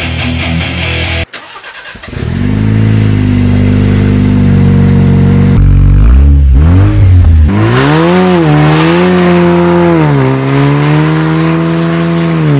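Jeep Wrangler JL running with a straight-through exhaust, no catalytic converter and a single Vibrant muffler. It starts with a steady drone, the revs swing up and down about six seconds in, and then the pitch keeps wavering as it drives. It is the setup that just hisses yet still drones.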